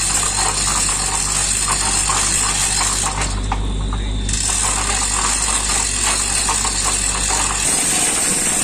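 Manual chain hoist being hauled by its hand chain, the links and ratchet clattering in rapid irregular clicks as it lifts a boat's gearbox. A steady low engine hum runs underneath until near the end.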